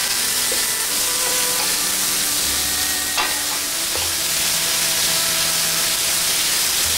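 Mixed vegetables sizzling as they stir-fry in a steel wok, turned constantly with a wooden spatula, a steady hiss with one sharper knock about three seconds in.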